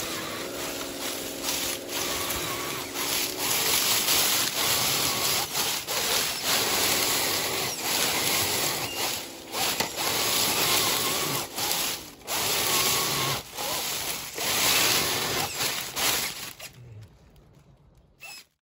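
RC scale crawler driving through dry fallen leaves: the leaves crackle and rustle under its tyres, with a faint electric motor whine. The sound fades out near the end.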